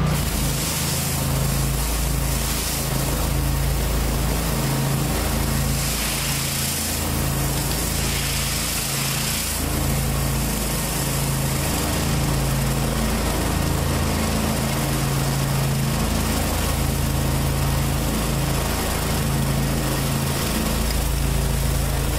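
Gas-engine pressure washer running steadily under load, feeding a rotary surface cleaner spraying concrete, with a constant hiss over the engine note.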